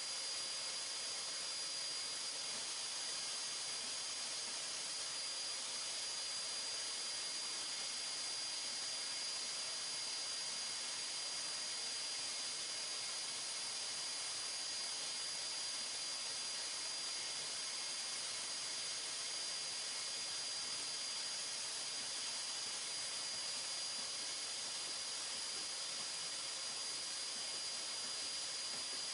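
Dust-extraction vacuum running steadily, drawing air through the hose of a hand sanding block during dry sanding of primer: an even hiss with a thin steady high whine over it.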